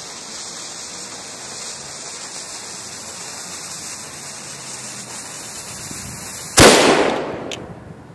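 Small black powder cannon's lit fuse hissing steadily as it burns down, then the cannon fires with one loud bang about six and a half seconds in that dies away over about a second. A short sharp click follows about a second after the bang.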